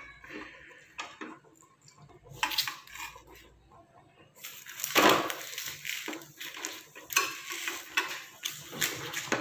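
A metal spatula scrapes and taps on a flat pan as banana-leaf-wrapped parcels are lifted and turned over, the dry leaves rustling and crackling. The sounds are sparse at first and become a busy run of scrapes and knocks from about halfway in.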